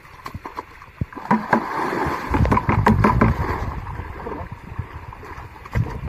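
Water splashing and sloshing in a shallow muddy creek as a bucket of water is tipped in, loudest for about two seconds in the middle, with scattered knocks.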